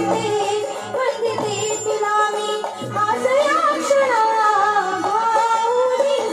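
A woman singing a Marathi devotional song (stavan) in a flowing, ornamented melody over steady held keyboard tones.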